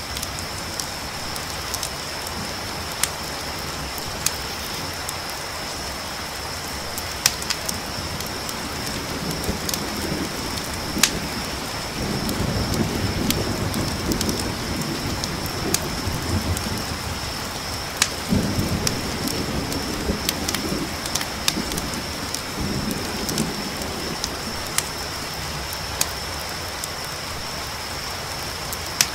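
Ambience of a crackling campfire with scattered sharp pops, a steady high chorus of crickets, and rain falling. Low rumbles of thunder roll in about a third of the way through and return twice more.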